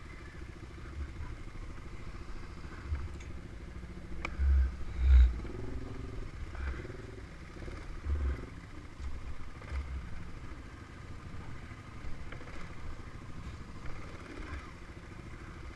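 Quad bike (ATV) engine running at low speed, with a few short changes in pitch from the throttle. Irregular low thumps come through with it, the loudest pair about four and a half to five seconds in.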